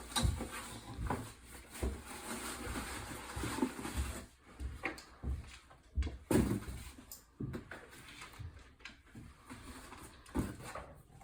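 Small items being set down one at a time into a tissue-lined cardboard box: irregular light knocks and rustling of paper and packaging.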